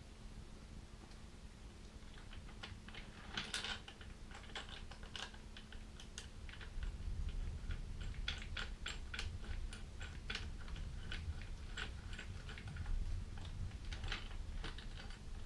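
An uneven run of small sharp clicks and taps from hand tools and bolts being handled while a rack bracket is bolted on, starting a couple of seconds in and growing busier.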